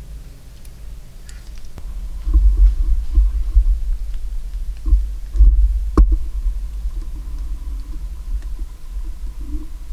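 Camera handling noise: low, uneven rumbling thumps as the handheld camera is moved, with one sharp click about six seconds in.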